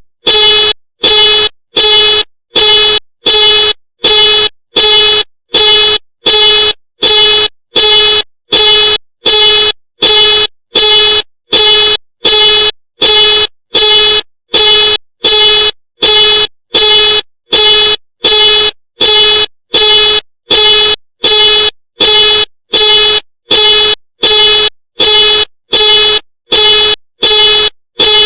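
Ford car alarm sounding: the car's horn honks in a steady, even rhythm, a little more than one loud honk a second with short silences between. Each honk is a single steady pitched blare.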